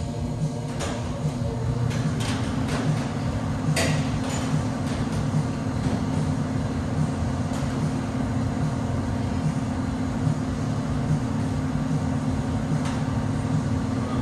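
A steady low machine hum, with scattered sharp knocks and clanks, the loudest about four seconds in.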